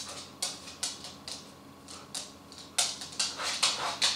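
Rough collie's claws clicking and scraping on a hard floor as it paces and turns around: irregular light clicks, coming thicker and faster in the last second or so.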